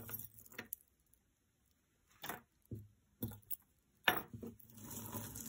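Bead jewelry being handled: beads and pieces clicking and rattling against each other in several short bursts, with a softer rustle near the end.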